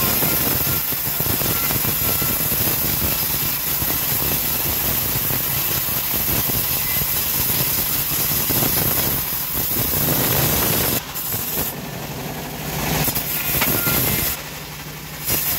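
Homemade bandsaw ripping a teak board lengthwise: a loud, dense sawing noise that holds steady for about eleven seconds. Then the cut ends and the saw runs on unloaded with a low hum, broken by one short noisy stretch.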